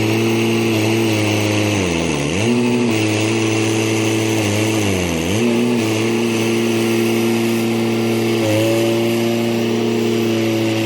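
John Deere 455E crawler loader's diesel engine running steadily. Its pitch sags sharply and recovers twice, about two and five seconds in.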